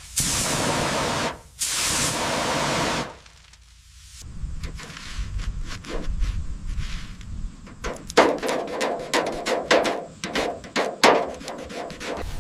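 Steady spraying hiss in two long bursts with a brief break between them, stopping about three seconds in. After a short lull comes a low rumble, then from about eight seconds in a rapid run of sharp knocks and taps.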